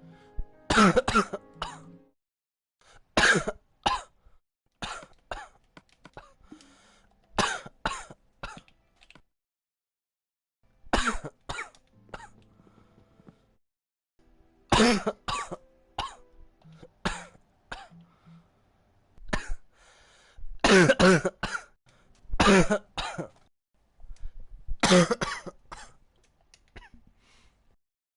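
A person in a coughing fit: harsh coughs and throat-clearing in repeated bouts of one to three coughs, a few seconds apart.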